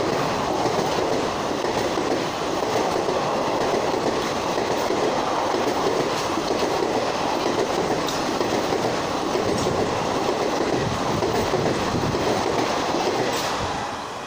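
Passenger coaches of an Indian Railways express train rolling past close by: a steady, dense rumble of wheels on rails, with wheels clicking over rail joints. The sound falls away near the end as the last coach passes.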